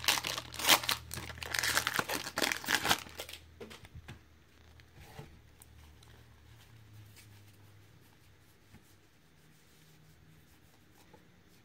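A foil 2018 Bowman baseball card pack being torn open, its wrapper crinkling loudly for about three seconds. After that, only faint, soft handling of the cards.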